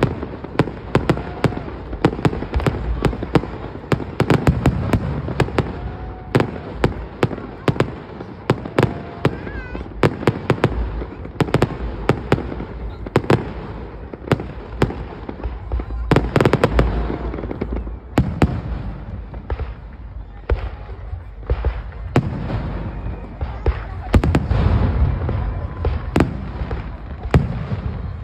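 Aerial fireworks going off in quick succession: many sharp cracks and reports over a deep rumble of booms, heaviest about two-thirds of the way through and again near the end.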